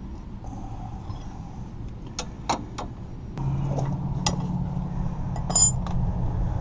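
Metal hand tools clinking and tapping: a few sharp clicks, then a ringing metallic clink near the end, over a steady low hum that gets louder about halfway through.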